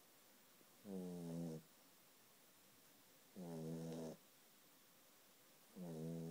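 Sleeping puppy snoring: three short, evenly spaced snores about two and a half seconds apart, each a brief tone under a second long.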